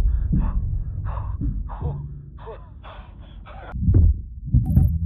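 Rapid, heavy breathing and gasps of a man inside a spacesuit helmet, over a low steady rumble. Several deep thuds come in the last second.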